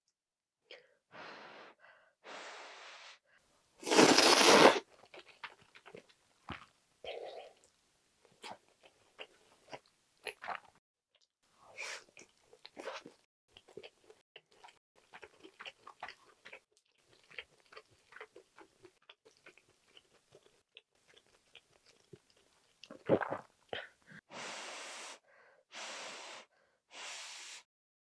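Close-miked eating: ramen noodles from a spicy budae-jjigae stew slurped loudly once about four seconds in, then chewed with many small wet clicks and smacks, with a few shorter slurps near the end.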